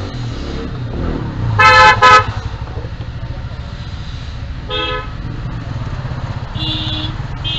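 Vehicle horns honking from road traffic: two short loud honks about two seconds in, a shorter one near the middle and a higher-pitched toot near the end, over a steady low rumble of traffic.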